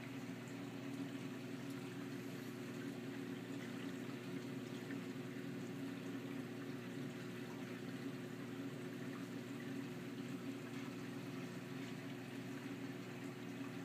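A reef aquarium's water circulation running steadily: an even rush of moving water over a low, steady pump hum.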